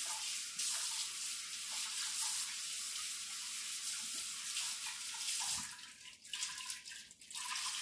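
Kitchen faucet running into the sink while hands are washed, shut off about six seconds in with a low thump, leaving a few scattered splashes.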